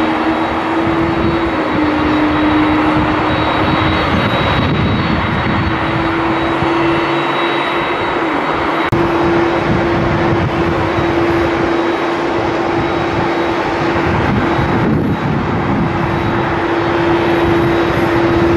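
Jet airliner engines heard from the airport: a loud, steady roar with a steady low hum through it, broken by a sudden cut about nine seconds in, after which the same kind of engine noise carries on.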